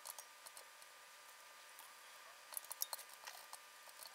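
Keys of an HP-97 calculator being pressed: faint, short clicks, a few at first, then a quick run of them about two and a half to three and a half seconds in.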